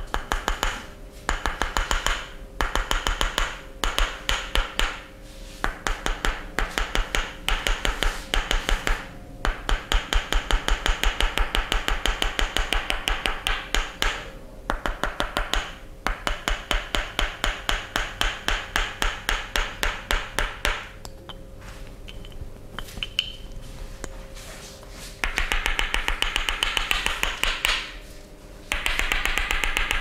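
Wooden knobbed massage tool clicking and rubbing rapidly as it is worked over the neck and head, in bursts of about three to four clicks a second with short pauses, louder and denser near the end. A faint steady hum lies underneath.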